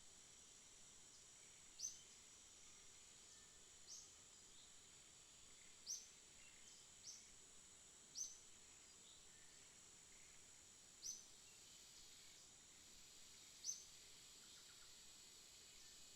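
A bird chirping: one short, sharp, high call repeated about every two seconds, over a faint, steady high-pitched hiss.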